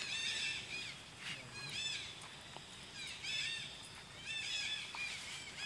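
Repeated short high-pitched chirping calls, each group a cluster of quick rising-and-falling notes, coming about every second and a half.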